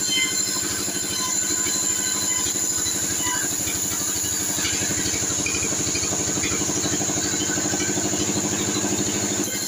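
T 36 band saw mill running and sawing sengon wood: a steady, evenly pulsing machine hum with a high steady whine over it.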